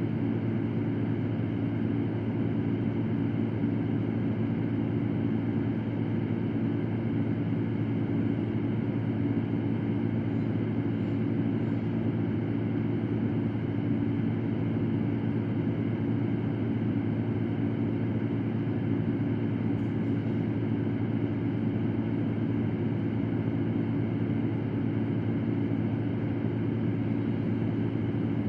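Electric fan running steadily: an even whooshing hiss over a low hum that does not change.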